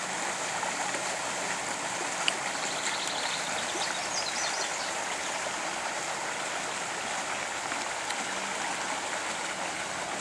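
Shallow creek running steadily over riffles, an even rushing of water. A faint bird trill sounds about three seconds in, with a few chirps just after.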